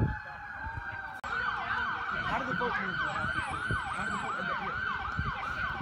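Fire engine siren holding a steady wail, then switching about a second in to a fast yelp that sweeps down about three times a second. A brief low thump comes at the very start.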